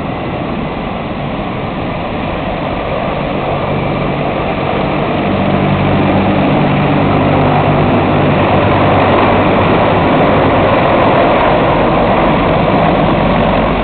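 A Sikorsky CH-53 heavy-lift military helicopter flying low overhead. Its rotor and engine noise grows steadily louder as it comes closer, with a low steady hum through the middle and the loudest part in the second half.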